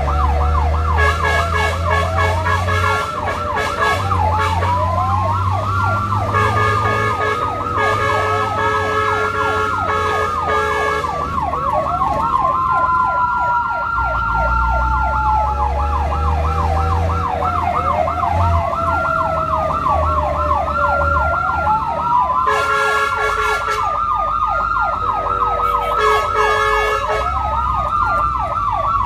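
Electronic emergency sirens of a responding fire and rescue vehicle. A rapid yelp runs together with a slower wail that rises and falls over several seconds, along with a low engine rumble. A buzzy horn sounds in several blasts, at the start, in the middle and near the end.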